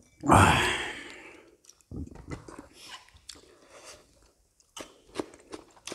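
Close-miked eating sounds: a man chewing, with small wet mouth clicks. One loud burst near the start fades away over about a second, then the chewing goes on softly with scattered clicks.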